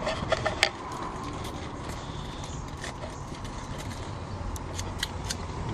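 Several sharp clicks and light knocks, a quick cluster in the first second and a few single ones later, over a steady background hiss.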